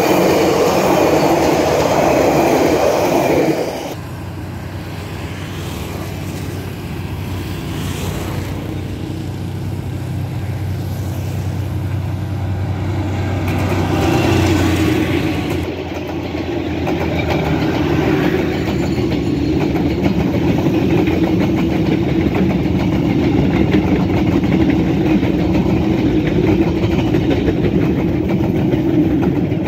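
Train running on the rails, with loud rumbling wheel noise that drops off sharply about four seconds in. A steady low hum, likely the locomotive's engine, carries on until about halfway through, then an even rumble builds again and holds.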